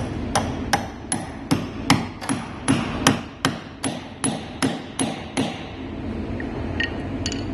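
Small hammer tapping a steel drift punch into the end grain of an oak wine barrel: about fifteen sharp, even strikes, roughly two and a half a second, each with a faint metallic ring, stopping about five and a half seconds in. The punch is cutting a shallow hole for an oak spline to seal a leak.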